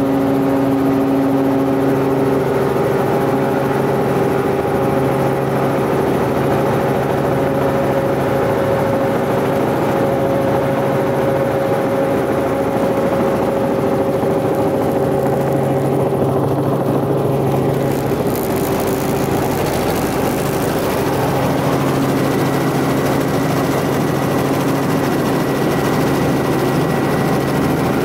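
Helicopter engine and rotor running steadily, heard from inside the cabin. About two-thirds of the way in the sound changes and a hiss comes in on top of the engine.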